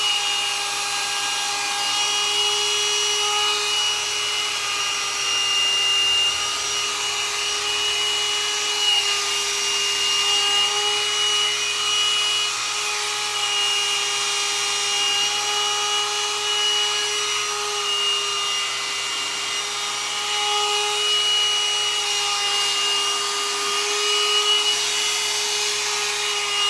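Hot-air dryer brush running steadily: a motor whine made of several steady tones over the rush of blown air, its pitch shifting slightly now and then.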